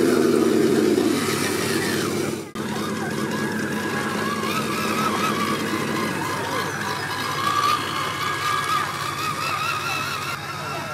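Electric motor and gears of a 1/10-scale HG P407 RC crawler whining as it drives, the pitch wavering up and down with the throttle. The sound drops out briefly about two and a half seconds in.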